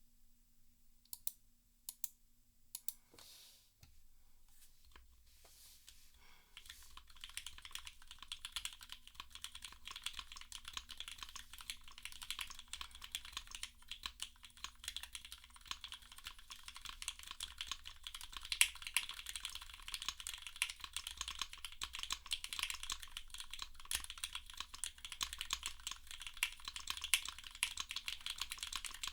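Typing on a gasket-mounted 65% mechanical keyboard with lubed Cherry MX Black Hyperglide linear switches, a carbon fiber plate and GMK keycaps: a few separate keystrokes in the first three seconds, then fast, continuous typing from about six seconds in.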